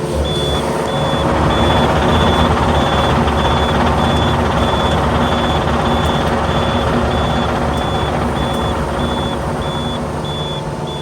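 A heavy work vehicle's reversing alarm beeping steadily, about three beeps every two seconds, over its engine running.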